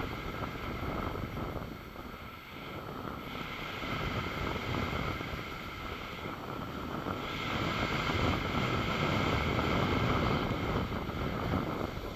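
Wind rushing over the microphone of a skier's camera during a downhill run, mixed with the hiss and scrape of skis sliding on snow. It swells and eases, loudest in the second half.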